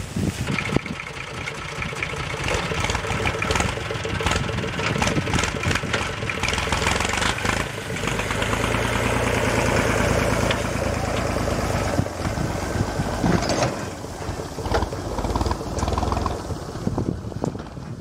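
Tractor engine running with its hitched paddy thresher, amid scattered knocks and clatter. The engine note is at its loudest and steadiest around the middle.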